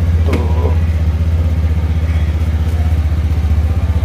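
Motor scooter engine idling steadily, a low, fast, even pulse.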